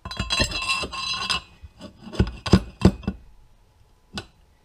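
Metal scraping with a ringing note as an old steel fork tube slides down over a motorcycle steering stem, then three sharp knocks as the tube is pounded down to drive a tapered roller head bearing onto its interference fit. A lighter click follows near the end.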